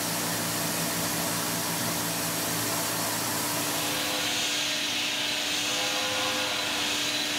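Tormach 770 CNC mill spindle running with a steady whine while a small cutter machines a hole in the top of an aluminum block under a hissing coolant spray. The hiss grows louder about four seconds in.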